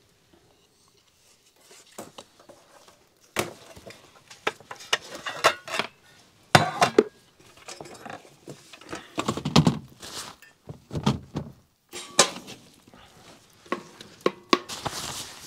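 Irregular knocks, clatters and clinks of things being handled, some with a short ringing tone. The loudest knock comes about six and a half seconds in.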